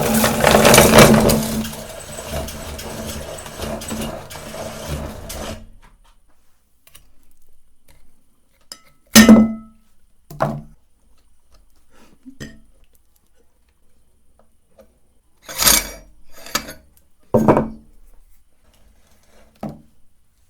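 Electric meat grinder running with a steady hum and gritty grinding, switching off about five and a half seconds in. Then come about seven separate sharp clinks and knocks, like metal or glass parts being handled.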